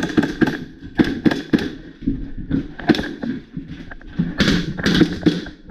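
Airsoft guns firing a run of sharp, irregular shots, with knocks and clatter between them.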